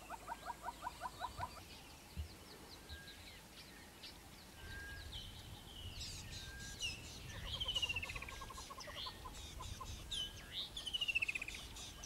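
Southern yellow-billed hornbill giving its clucking call, a fast run of low clucks about seven a second, at the start and again in the second half. Other birds chirp and trill higher up, with short falling trills the loudest sounds in the second half.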